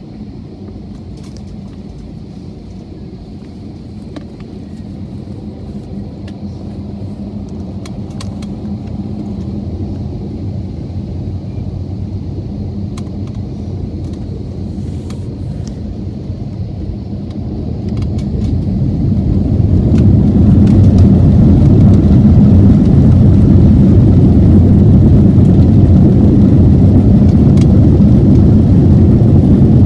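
Airliner jet engines and takeoff rumble heard inside the cabin, growing louder as the plane starts its takeoff, then rising sharply about 18 to 20 seconds in to a loud, steady roar at takeoff thrust.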